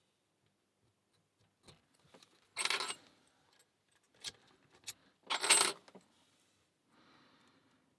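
Metallic clicks and jingling of a padlock and lock picks being handled, with two louder clattering jangles a few seconds apart.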